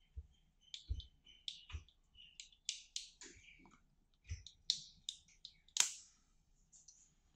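Irregular small clicks, taps and scrapes of plastic and metal parts as a cheap solar LED lightbulb's metal screw base is handled and worked apart by hand, with a sharper click about six seconds in.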